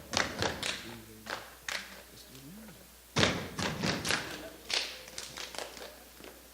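Step team stepping: sharp stomps and hand or body slaps in quick rhythmic phrases, with a short pause before a louder run of hits a little after three seconds in.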